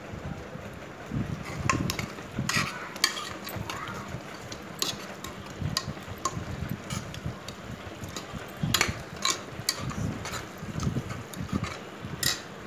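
Metal slotted spoon stirring a thick onion-tomato masala with ginger-garlic paste in an aluminium pressure cooker, with irregular clinks and scrapes against the pot's sides as the paste fries in the oil.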